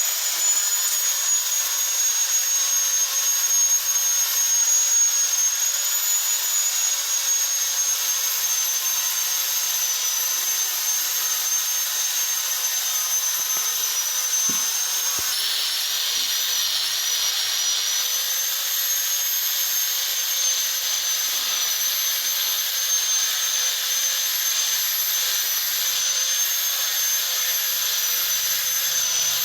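Electric angle grinder running continuously with a steady high-pitched whine. About halfway through, the whine dips slightly in pitch and a rougher hiss joins in.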